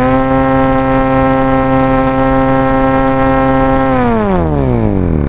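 Small DC motor spinning a cardboard fan's blades, giving a steady whine, then falling in pitch over the last second or so as the motor winds down.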